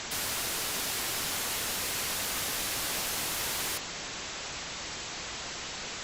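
A burst of bright hissing static lasting nearly four seconds, then a steady, duller, quieter hiss.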